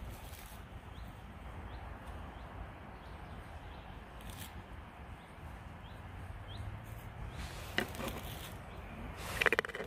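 Wind rumbling on the microphone in a forest, with a few faint short bird chirps. Near the end come clicks and rustles, loudest just before the end.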